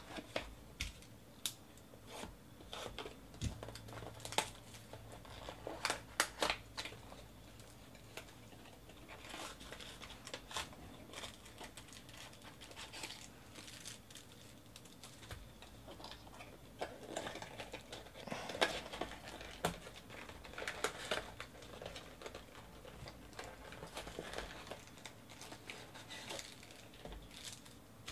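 Sealed trading card packs and their box being handled and torn open: wrappers crinkling and tearing, with scattered sharp rustles coming in clusters.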